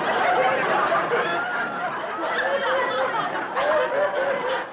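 Studio audience laughing: many voices at once, dying away near the end.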